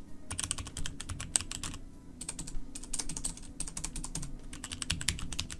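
Typing on a Gamdias Hermes mechanical keyboard with Cherry MX Blue switches, fitted with dampening O-rings and a rubber pad: fast runs of key clicks, with short pauses about two and four seconds in.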